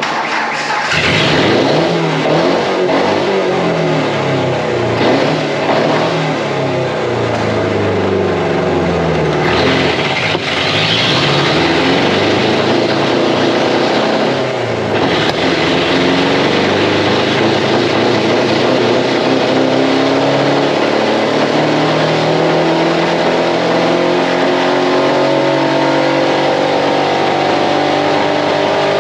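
A small pickup's engine runs on red aerosol spray paint sprayed into its intake while the truck is driven on a chassis dyno. The revs rise and fall for the first half, then climb steadily in one long pull.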